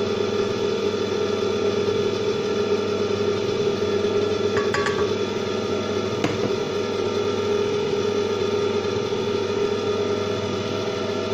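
Electric stand mixer's motor running at a steady pitch while it stirs dry flour in a steel bowl. A few light clicks come about halfway through.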